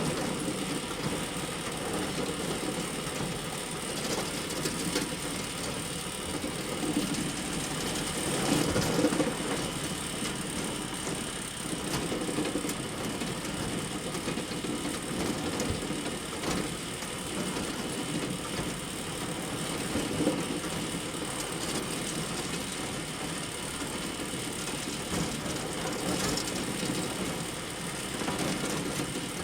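Small motors and gears of miniature toy trucks whirring steadily, with a continuous fine rattle.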